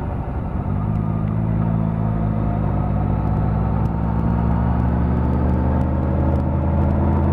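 Suzuki GSX-R750 inline-four engine heard on board while riding at steady speed, with wind rush over the engine note. The note dips briefly at the start, then holds steady.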